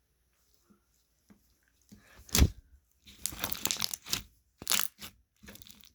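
Close-up handling of a slime and its container: one thump a little over two seconds in, then several bursts of rustling, crackling noise.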